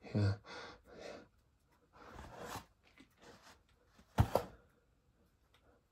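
Handling noise as toy pieces and their packaging are picked up and moved: scattered short rustles and scrapes, with one sharp knock about four seconds in.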